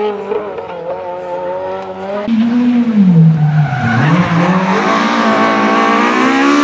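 Rally car engines at high revs: first a distant car held at steady revs, then, about two seconds in, a Renault Clio rally car close by, its revs dropping as it slows for a tight corner and then climbing steadily as it accelerates away.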